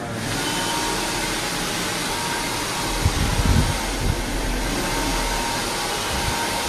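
Hand-held hair dryer blowing steadily, a continuous rush of air, with a few low bumps about three to four seconds in.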